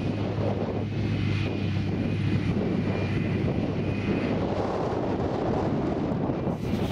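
John Deere 8800 self-propelled forage harvester running steadily under load as it chops grass and blows it into the trailer alongside: a steady engine drone with a faint high whine that comes and goes over it.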